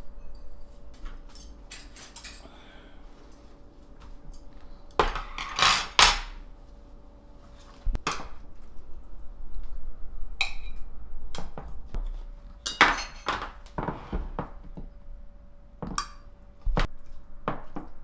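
Tableware clinking and knocking as dishes and cutlery are handled on a table: a scattered run of sharp clinks and knocks, busiest about five to six seconds in and again from about twelve to seventeen seconds, with one ringing clink about ten seconds in, over a faint steady hum.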